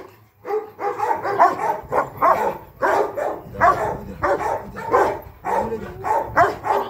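Large black guard dog barking fast and repeatedly, about two barks a second, while a handler agitates it with a plastic chair in protection training.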